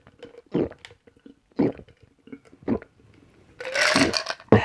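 Close-up gulping of fizzy Schweppes lemon tonic, one swallow about every second, three times. Then a loud breathy sound and a sharp knock near the end.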